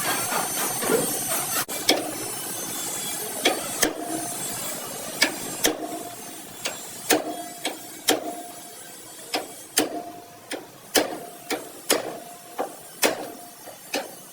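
Hammer blows on car body sheet metal, irregular, about one or two a second, each with a short metallic ring: panel denting work. A steady hiss underneath fades over the first few seconds.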